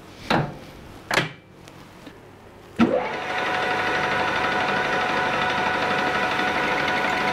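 Two brief clunks, then about three seconds in a metal lathe switches on with a sharp start and runs steadily, a motor and gear whine, its spindle set to 600 rpm.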